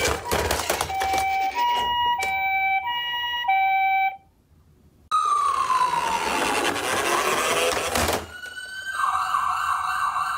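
Electronic siren sounds from battery-powered toy ambulances. First a two-tone hi-lo siren alternating between two pitches, which stops sharply about four seconds in. After a short gap a siren tone slides downward in pitch for about three seconds, and near the end a harsher, buzzy steady tone sounds.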